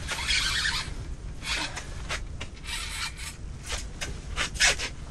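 Irregular rustling and rubbing from an angler's clothing and gear as he reels in a hooked fish and leans over the ice hole to land it: five or six short scraping swishes.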